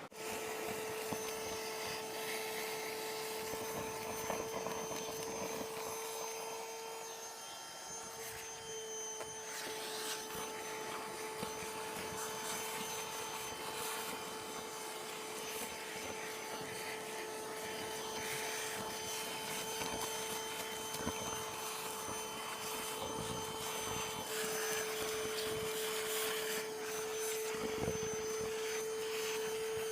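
Portable shop vacuum switching on and running steadily with a constant whine and a hiss, sucking sand and gravel off bedrock, with scattered clicks through the hose.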